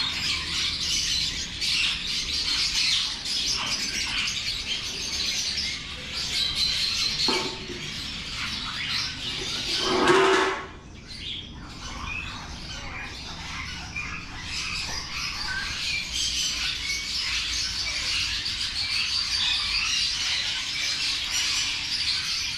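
A flock of caged lovebirds keeps up a dense chatter of chirps and squeaks. About halfway through there is one brief, louder rustle.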